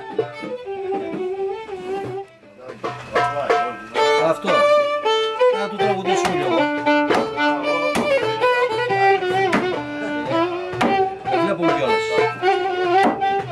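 Live Greek folk music: a violin playing a winding melody over plucked lute strokes, with a brief lull about two seconds in before the tune picks up again.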